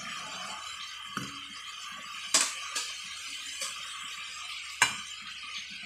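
Metal spatula clinking against a steel wok, about five sharp clinks, the loudest two near the middle and near the end, over a steady hiss.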